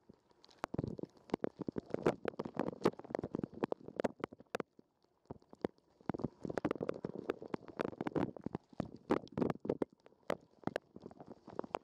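Dishwasher wash water spraying and splashing onto a sports camera's waterproof housing, heard from inside the housing: gurgling surges of spray that come and go, with many sharp drips and taps and a brief lull about halfway.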